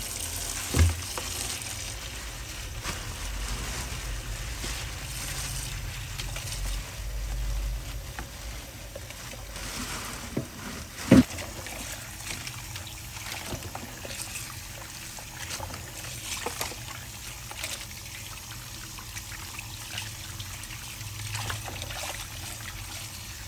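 Tap water running into a basin while small octopuses are rinsed and rubbed by hand, splashing and sloshing. Two sharp knocks stand out, about a second in and about eleven seconds in, the second the loudest.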